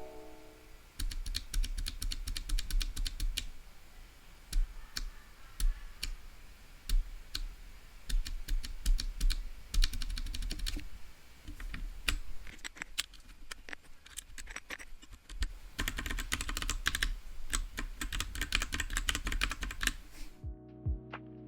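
Typing on a Royal Kludge RK68 65% mechanical keyboard with TTC brown tactile switches: fast runs of key clicks with short pauses, starting about a second in and stopping shortly before the end.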